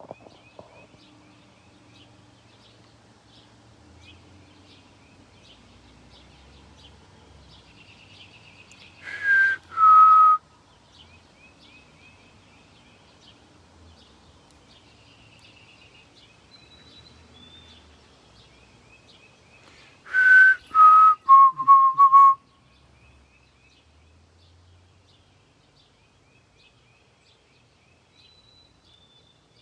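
Unidentified bird giving loud, clear whistled notes. First comes a pair of falling notes, then about ten seconds later a longer phrase of two falling notes followed by four quick, lower repeated notes. Faint small-bird chirps carry on in the background.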